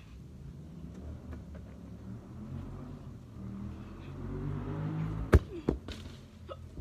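A football kicked hard: one sharp thud about five seconds in, followed by a softer knock, over a low rumble that swells just before it.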